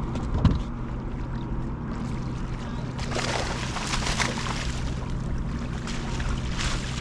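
Water splashing beside a boat in short bursts, about three seconds in and again near the end, as a small hooked mulloway is brought to the surface. A steady low boat hum runs underneath, with a single thump just after the start.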